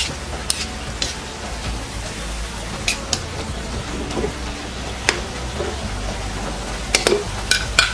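Metal spatula stirring and scraping grated santol simmering in coconut milk in a metal wok, with a low sizzle and occasional clicks of the spatula against the pan.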